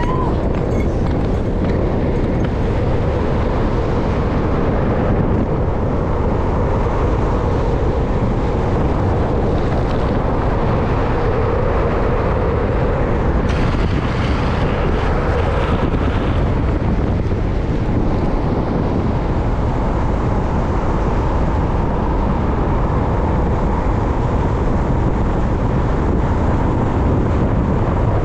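Steady rush of wind buffeting the camera microphone at downhill skateboard speed, with the rolling roar of skateboard wheels on asphalt underneath. A hissier stretch comes about halfway through.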